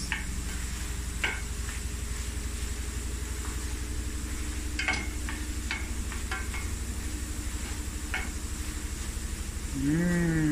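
Wooden spoon stirring diced apples in a stainless steel pan as they cook, knocking lightly against the pan now and then, over a steady low hum.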